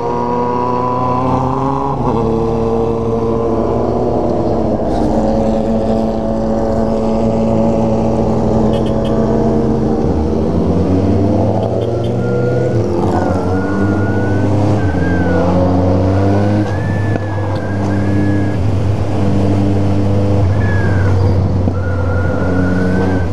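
Motorcycle engine running under way, its note rising under the throttle and dropping at each gear change several times.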